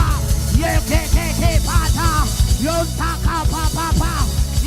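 Live church worship band music with a heavy drum and bass beat, under a quick repeated line of short rising-and-falling notes, about three a second.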